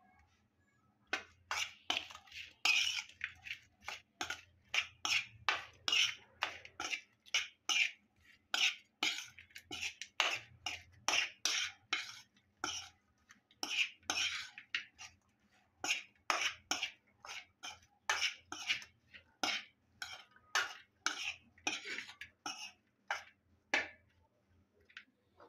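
Metal spoon scraping and clinking against a steel bowl, roughly two strokes a second, while mixing small fish with spice powder and paste.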